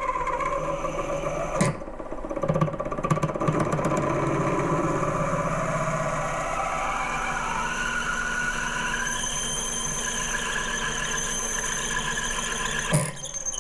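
Metal lathe running while a large, very sharp twist drill bores into the end of a spinning brass rod: a steady motor and cutting whine with shifting tones, and a sharp click about a second and a half in and another near the end, typical of a sharp drill bit catching on brass.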